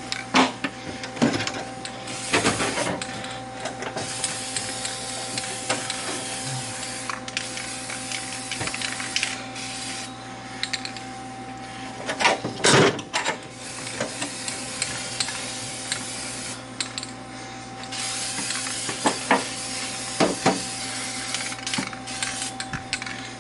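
Aerosol spray-paint can hissing in several long bursts with short breaks between them, with a few sharp knocks and clicks in between, over a steady background hum.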